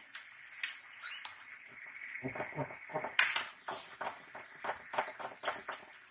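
A ladle stirring vegetables in an aluminium pot, knocking and scraping against the pot's side in a string of short clinks. The sharpest knock comes about three seconds in, followed by a quick run of smaller ones.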